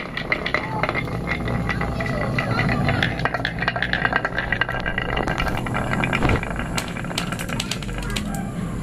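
Glass marbles rolling down carved wooden tracks and through plastic curve pieces, rattling continuously with many quick clicks as they knock against the wood and each other; the clicks come thicker in the second half.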